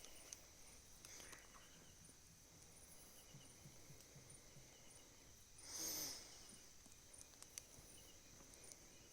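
Faint night insect chorus: a steady high buzz of crickets with faint repeating chirps over it, and a short burst of noise about six seconds in.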